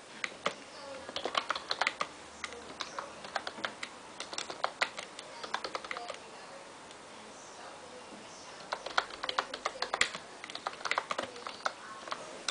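Typing on a computer keyboard: bursts of rapid key clicks, with a pause of a few seconds around the middle.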